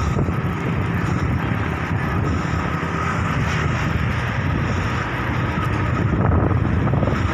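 Steady wind rush on the microphone with a low rumble of tyres on concrete, from a bicycle riding along at speed.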